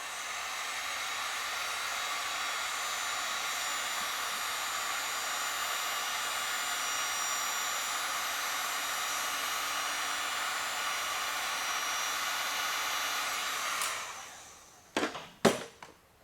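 Electric heat gun running with a steady blowing whir, switched off about fourteen seconds in and winding down. A few sharp knocks follow near the end.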